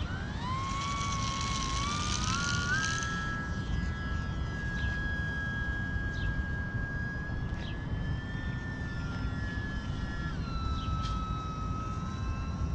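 Electric motor and propeller of an E-flite UMX Pitts micro RC biplane throttling up for takeoff, a whine rising in steps over the first few seconds, then holding a steady high pitch in flight. About ten seconds in the pitch drops as the throttle is eased back.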